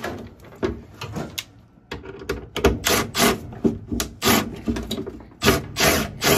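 Sharp clunks and knocks of metal and plastic furnace parts being handled and fitted around a gas furnace's inducer motor assembly: a few scattered knocks, then from about two and a half seconds in a quick run of clunks, roughly two a second.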